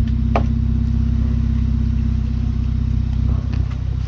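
An engine idling steadily, a low even hum, with one short click about a third of a second in.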